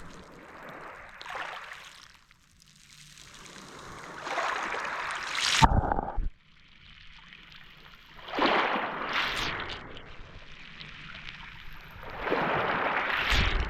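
Small Mediterranean sea waves washing onto the shore, three surges of rushing water about four seconds apart with quieter lulls between.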